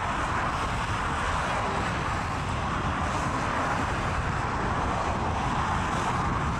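Steady rushing noise with a low, gusting rumble of wind on the microphone.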